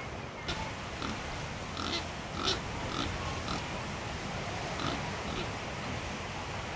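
Short animal calls, about eight of them spaced unevenly through the first five and a half seconds, over a steady outdoor background.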